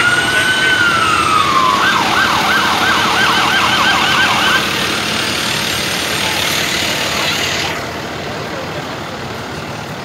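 Vehicle siren wailing up and holding its pitch, then switching to a fast yelp for about two and a half seconds before cutting off, over the steady engine noise of slow-moving trucks.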